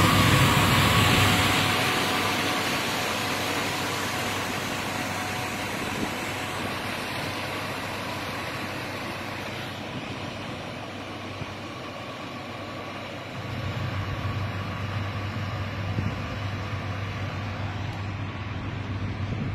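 Tugboat's diesel engine running as the boat pushes its barge away, a loud low drone at first that fades over the next few seconds into steady background noise. About two-thirds of the way through, a low rumble rises again and holds.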